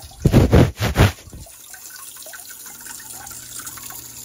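Electronic bidet toilet seat's extended wand spraying a steady stream of water into the toilet bowl. Near the start, a few loud bumps and rubs from the phone being handled close to the spray.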